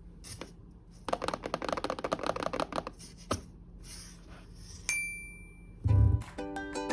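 A quick run of light rattling clicks, then a single bright ringing ping and a low thump. Plucked ukulele-like music starts near the end.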